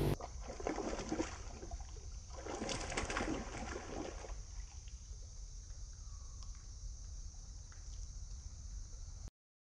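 Water splashing in irregular bursts for the first few seconds as monkeys wrestle in a shallow muddy pond, then quieter water sounds over a steady high hiss, with a faint short call about six seconds in. The sound cuts off abruptly near the end.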